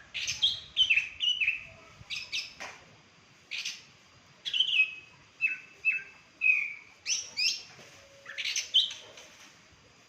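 A songbird singing a string of loud, sharp chirps, many sliding downward, in irregular clusters with short pauses between. It is a freshly caught wild bird already singing.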